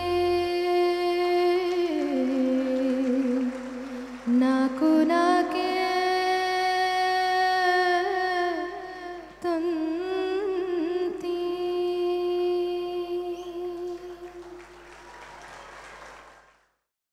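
A woman singing a sugama sangeetha (Kannada light-music) song into a microphone, holding long sustained notes that slide between pitches over a steady low drone. The song fades out near the end.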